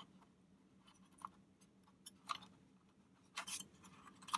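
Faint clicks and light rattling of the Intel NUC's metal drive bracket as it is bent back and lifted by hand, with a short cluster of handling noise about three and a half seconds in, over a faint low hum.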